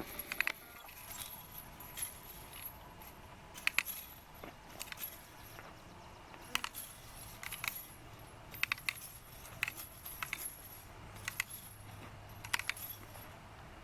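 Spent brass cartridge cases clinking and jingling as a rolling wire-cage ammo picker is pushed over them. The cases snap into the cage in short metallic clusters every second or two.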